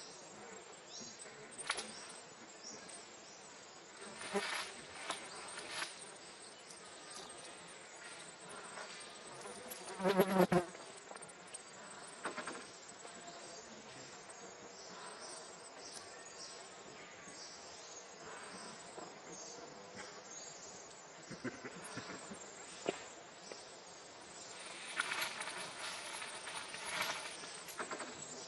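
Steady outdoor insect buzzing and chirring. About ten seconds in there is a short, louder pitched call, and there are brief swells of the buzzing near the start and near the end.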